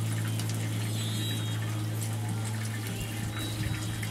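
Battered zucchini and bell pepper strips deep-frying in a pan of hot oil: the oil bubbling and sizzling steadily, over a steady low hum.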